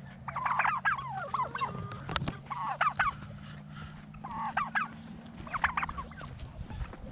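Backyard poultry flock calling in several short bursts of calls, over a steady low hum.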